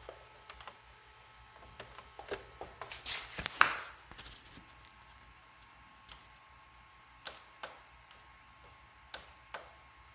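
Scattered sharp clicks, with a brief burst of rustling and scraping handling noise about three seconds in, over a faint steady high tone.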